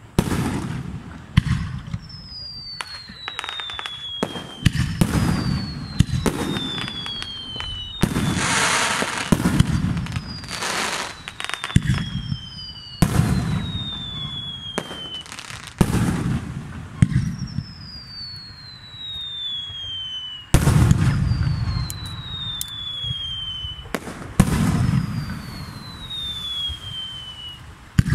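Fireworks display: aerial shells bursting one after another at irregular intervals, each a sharp bang with a rumbling echo. Between the bangs, a dozen or so whistles fall in pitch, and there is a dense run of crackling about a third of the way in.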